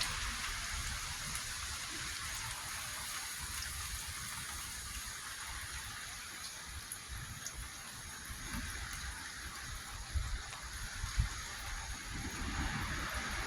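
Steady rain hissing, with a few low thumps about ten and eleven seconds in. Near the end a low rumble of thunder starts to build.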